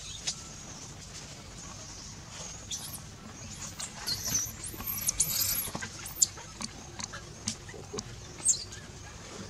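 High-pitched squeals from a baby macaque: a run of short, arching cries from about three seconds in until past six seconds, then one more near the end.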